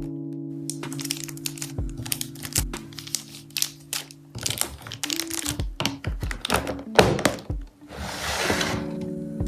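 Crinkling plastic packaging, clicks and taps from parcels and small items being handled, with a longer rustle about eight seconds in. Soft light music with held notes plays underneath.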